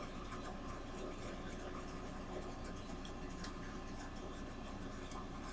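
Steady low background hum and hiss, with a few faint light clicks scattered through.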